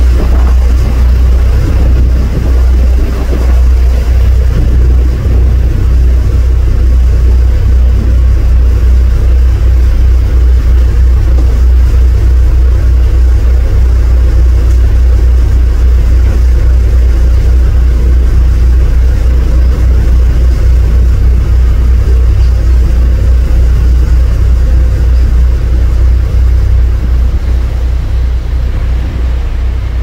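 A cruise boat under way: a loud, steady low rumble of its engine mixed with wind buffeting the microphone. The level eases slightly near the end.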